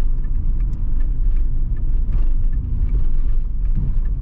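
Car cabin noise while driving slowly: steady low engine and road rumble, with faint ticks that fit the turn signal, which is left on through the turn.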